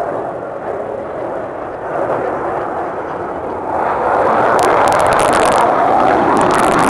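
Jet engine of a Thunderbirds F-16 fighter as it climbs overhead. The noise swells sharply about four seconds in, with a rough crackle through the loudest part.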